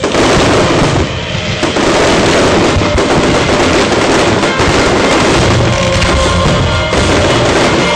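Fireworks bursting and crackling in a dense barrage over loud music, starting suddenly.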